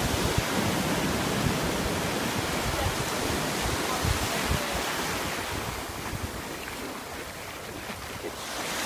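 Ocean surf breaking and washing up the beach, with wind buffeting the phone's microphone in low rumbles. The wash eases off from about six seconds in and builds again near the end.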